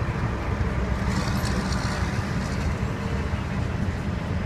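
Steady low rumble of vehicle noise, with a brief faint hiss about a second in.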